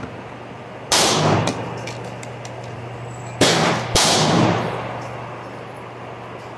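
Gunshots with long echoing tails: one about a second in, then two more close together about half a second apart near the middle.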